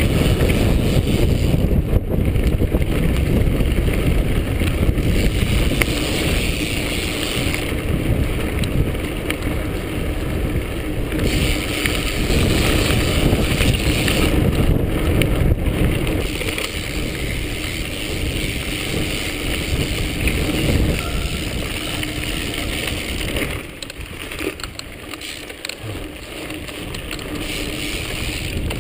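Mountain bike riding along a dirt singletrack: wind rushing over the on-bike camera's microphone and the tyres rumbling over the trail, with the bike rattling. It gets quieter about four-fifths of the way through.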